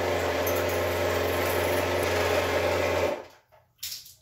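Fairywill sonic electric toothbrush buzzing steadily while teeth are brushed, switching off suddenly about three seconds in; a couple of soft knocks follow.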